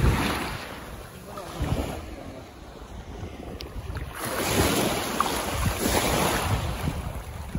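Small waves washing in over a sandy shore in swells, a surge at the start and a longer one from about four seconds in, with wind rumbling on the microphone.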